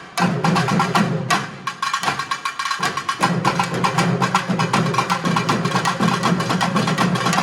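Urumi, the South Indian hourglass drum, played in a rapid, unbroken stream of stick strokes, with a low steady hum underneath that drops out for a moment about two seconds in.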